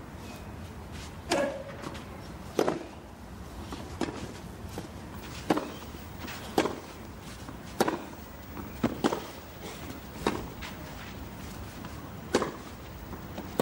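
Tennis rally: a ball struck back and forth with rackets, about ten sharp pops roughly one every second and a quarter.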